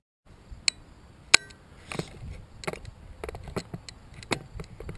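A crossbow being handled and loaded: a series of sharp clicks and knocks as a bolt is set onto the rail.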